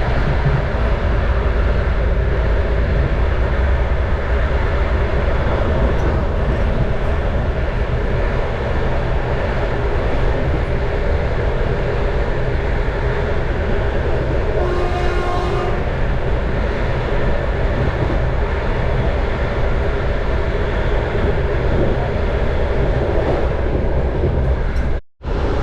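Steady running noise of a moving passenger train hauled by a 2TE10U diesel locomotive, a dense low rumble of wheels and engine. About halfway through, a short horn blast sounds for about a second and a half. Just before the end the sound cuts out for a moment.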